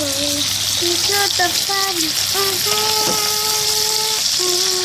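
Steady sizzling hiss of minced pork frying in oil, with a wordless tune over it that holds one long note in the middle.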